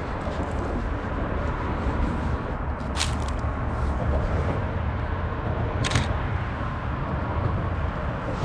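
Two shutter releases of a Canon 5D Mark II DSLR, each a short sharp mirror-and-shutter clack, about three seconds apart, over a steady low rumble.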